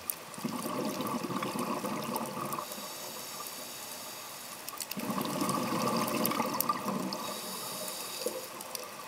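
Scuba diver's breathing heard through the water at the camera: bubbles gurgling out of the regulator on two exhalations about five seconds apart, each followed by a softer hiss of inhalation. Faint scattered clicks run underneath.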